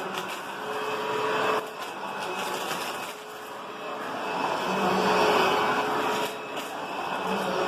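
Upright vacuum cleaner with a newly replaced brush-roll belt running over dust scattered on the floor, its motor drone rising and falling as it is pushed back and forth.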